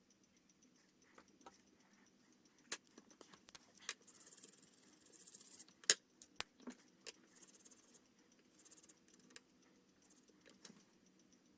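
Quiet handling of pens and paper: short scratchy strokes on paper and small clicks and taps, with one sharp click about six seconds in the loudest.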